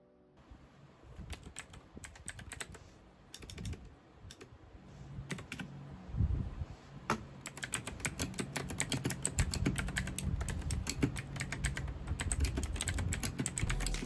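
Typing on an RK71 mechanical keyboard fitted with a full set of honey keycaps: quick key clacks, sparse at first, then faster and louder from about six seconds in.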